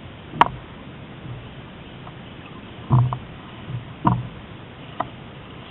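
A small sailing dinghy underway, with a steady rush of wind and water. Four short, sharp knocks or slaps against the hull come about half a second in, around three seconds, at four seconds and at five seconds.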